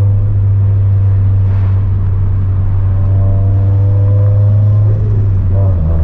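Turbocharged Scion FR-S flat-four engine with an aftermarket catless exhaust, droning steadily at cruise and heard from inside the cabin. The engine note changes about five seconds in.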